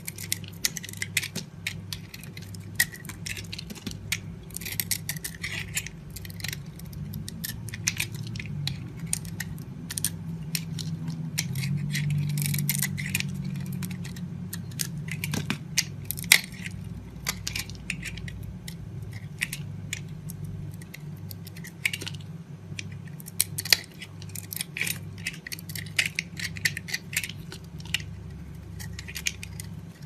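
Bar of dry soap being carved with a utility-knife blade. There are many short, crisp crunching scrapes and cracks in quick succession as thin curls and flakes are shaved off.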